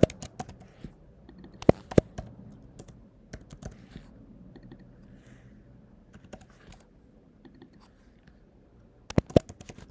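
Computer keyboard typing: scattered keystrokes, with two loud clacks about two seconds in and a quick run of keystrokes near the end.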